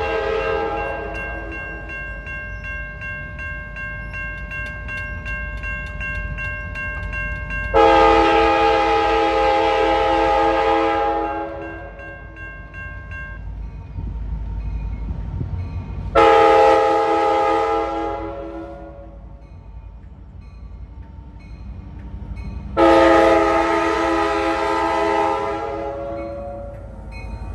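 Diesel passenger locomotive sounding its multi-note air horn for a grade crossing: a long blast about eight seconds in, a shorter one around sixteen seconds and another long one around twenty-three seconds, over the low rumble of the approaching train. Early on a crossing bell rings rapidly.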